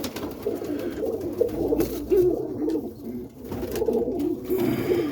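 Roller pigeons cooing continuously in the loft, a low warbling coo from several birds, with a few faint clicks or rustles.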